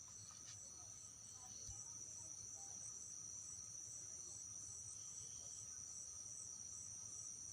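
Faint, steady high-pitched chirring of a night insect chorus, with a fine even pulsing.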